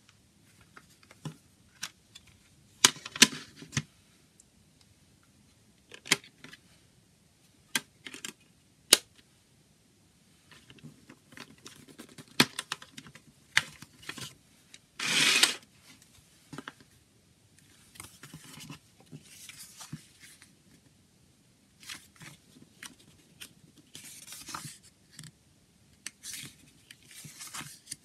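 Handling a plastic CD jewel case: sharp clicks and snaps as the case is turned over and opened, a short loud scraping rasp about halfway through as the booklet is slid out of the lid, then soft paper rustling as the booklet is opened and leafed through.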